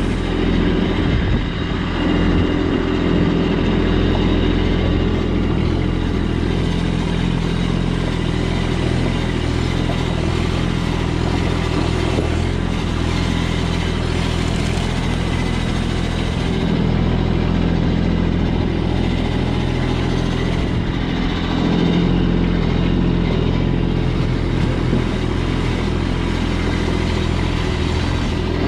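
A vehicle engine running steadily at low revs.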